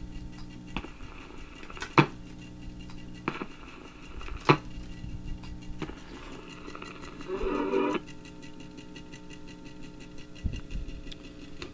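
RCA Victor 45-EY record player humming steadily, with loud sharp clicks about every two and a half seconds as its muting switch is worked and cleaned, and fainter clicks between them.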